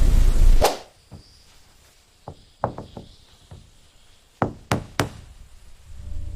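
A loud low rumble that cuts off suddenly with a sharp knock well under a second in, followed by a scattering of single sharp knocks, several of them close together about four and a half to five seconds in.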